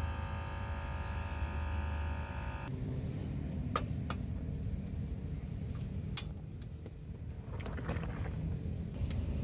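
Night insects trilling steadily at a high pitch over a low rumble. A sustained tone with many overtones stops abruptly about two and a half seconds in, and a few sharp clicks follow.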